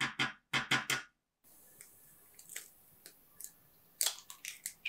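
A quick run of loud taps in the first second. Near the end comes a cluster of sharp clicks and cracks as a hen's egg is cracked open against a glass mixing bowl.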